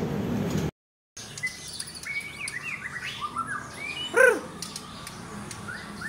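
Caged white-rumped shama (murai batu) singing: a run of short whistled and chirped notes, with a louder arching call about four seconds in.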